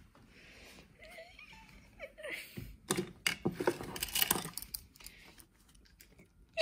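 Handling noise: a quick run of knocks and rustles a few seconds in as objects and toys are picked up and moved, with a couple of brief faint vocal sounds just before.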